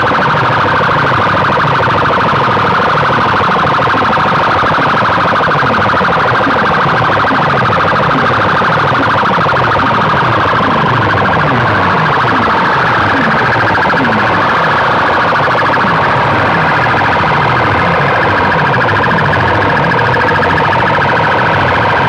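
A huge competition DJ sound system blasting a siren-like effect track at full volume, heavily distorted: fast falling sweeps in the bass repeat about two a second under a steady high wail.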